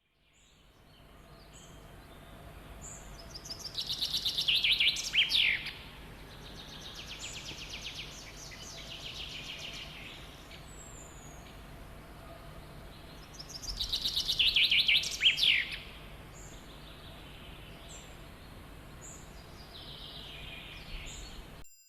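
Songbirds singing: the same loud song phrase comes twice, about ten seconds apart, a rapid trill that builds and ends in a few quick downward-sliding notes, with softer trills and short high calls in between.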